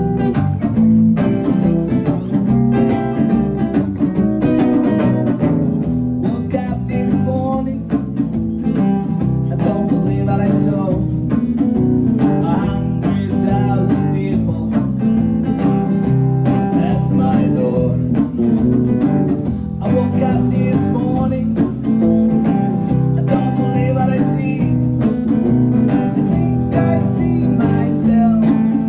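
Live band playing a song on guitar, bass and drums: plucked guitar and bass notes over a steady drum beat, with no break.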